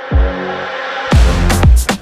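Electronic dance music with heavy, falling bass drops; a drum beat with sharp hits kicks in about halfway through.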